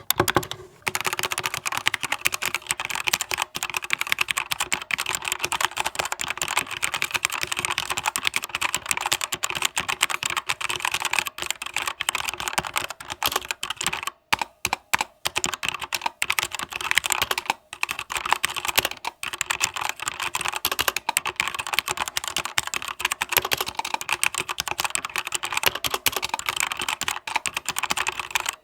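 Keychron K2 mechanical keyboard being typed on fast and continuously: a dense run of keystrokes, broken by a few short pauses around the middle.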